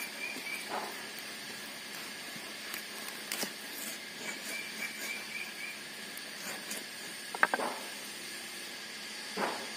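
Heavy chopping blade cutting a snakehead fish into steaks on a wooden log block: a few scattered knocks of the blade through the fish into the wood, the loudest a quick pair about seven and a half seconds in. A steady hiss runs underneath.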